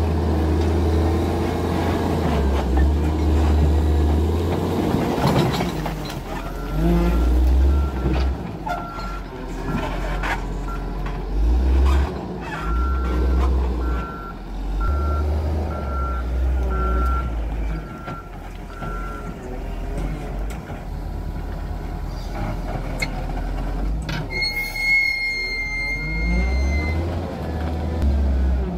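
Heavy earth-moving machinery diesel engines running, their low rumble rising and falling with the work, while a reversing alarm sounds a steady series of beeps for about ten seconds in the middle. Near the end, a high steady squeal lasts a few seconds.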